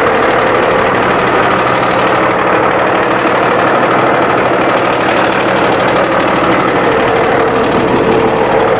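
Cummins 6.7-litre inline-six turbodiesel idling steadily in the open engine bay of a Freightliner-chassis shuttle bus.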